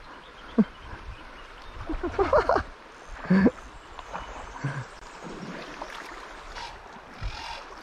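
A person makes a few short wordless exclamations over steady wind and river noise while playing a hooked fish.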